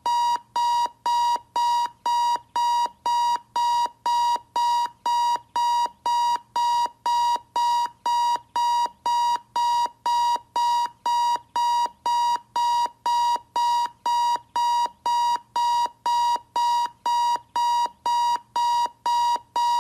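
Desk clock alarm beeping: identical beeps on one steady pitch, repeating evenly about twice a second with short gaps between them.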